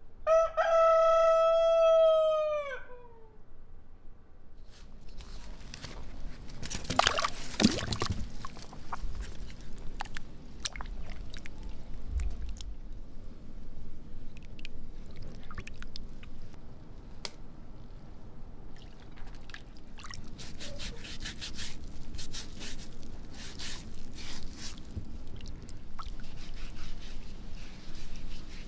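A rooster crows once, a long call of about three seconds whose pitch falls away at the end. Afterwards come a brief rushing noise and many small clicks, splashes and handling sounds as potatoes are washed by hand in a bowl of water.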